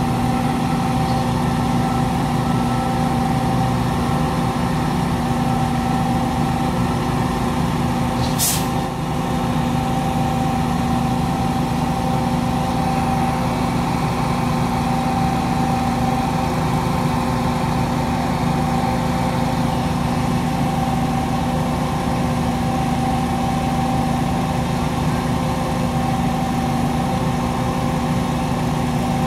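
A mobile crane's diesel engine idling steadily with an even hum, and a single sharp click about eight seconds in.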